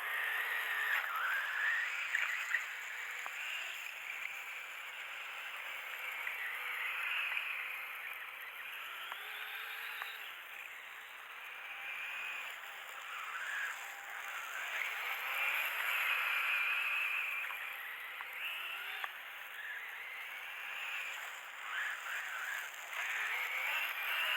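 Radio-controlled toy ATV's motor whining, rising and falling in pitch as it speeds up and slows over and over while driving through snow.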